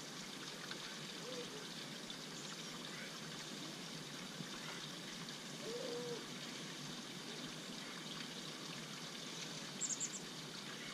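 Faint creekside ambience: a steady trickle of water, with a few low bird calls and a quick burst of high chirps near the end.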